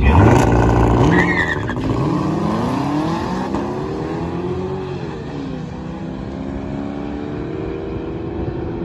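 Two cars launching off the drag strip's starting line at full throttle. The sound is loudest at the launch, then the engines rev up through the gears, the pitch climbing, dropping at a shift and climbing again as they pull away down the track.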